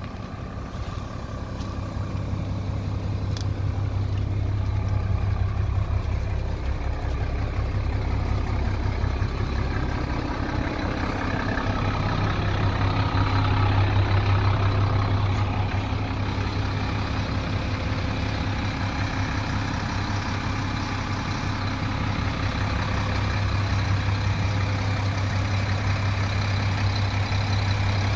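Karosa LC 936 E coach's diesel engine idling steadily, a deep even drone that swells a little louder now and then.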